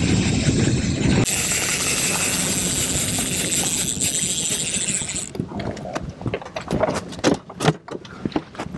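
Boat's outboard motor running, with wind and water noise. About five seconds in, this steady noise drops away and a run of irregular sharp clicks and knocks takes over.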